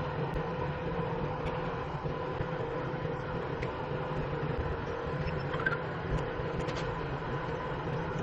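A steady mechanical hum with a constant tone and a few faint clicks.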